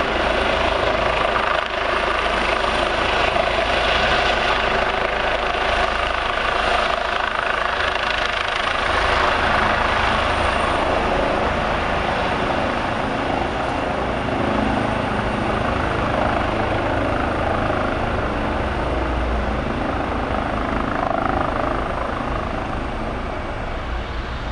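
ADAC air-rescue helicopter coming in to land, its rotor and turbine running steadily, easing slightly quieter near the end as it descends.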